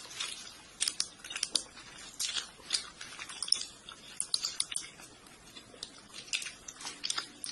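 Rapid, irregular clicking and tapping, like fast typing on a computer keyboard, fairly faint.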